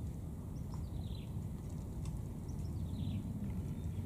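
Steady low outdoor rumble with a bird calling twice, each call a short cluster of high notes sliding down in pitch.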